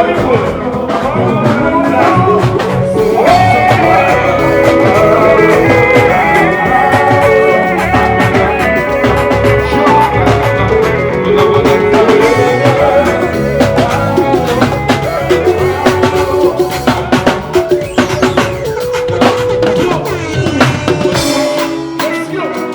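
Loud party music with a steady drum beat, guitar and singing.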